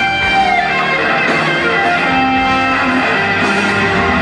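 Live rock music led by an electric guitar playing long held notes, one bending down in pitch near the start.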